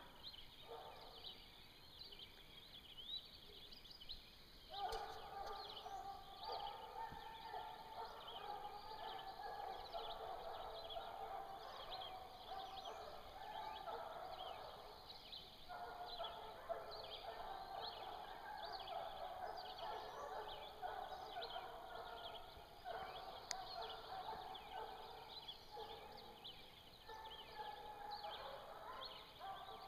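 A pack of hounds baying in the distance, many voices overlapping in a steady chorus that starts about five seconds in: bear hounds pressing a black bear. Faint high chirps run under it.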